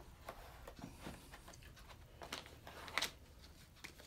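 Faint handling noises: light rustles and small taps as chisels and their plastic sleeves are handled on a leather tool roll, with a sharper tap about three seconds in.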